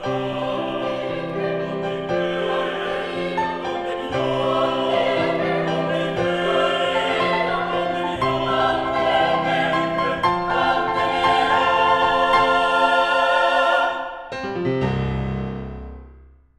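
Mixed four-part choir singing with piano, held loud through the final sung phrase. After a short break about 14 seconds in, a last chord sounds and dies away to silence at the very end.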